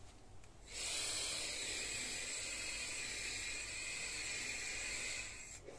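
A steady hiss that starts abruptly just under a second in and cuts off about five seconds later.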